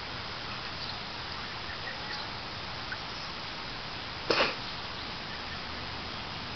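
A savannah cat's paw slapping the shallow water of a plastic kiddie pool once, a short splash about four seconds in, over a steady background hiss.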